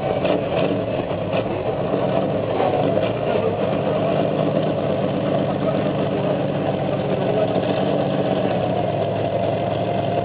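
Engine of a heavy multi-axle off-road truck running steadily at low, even revs as it crawls through a ditch.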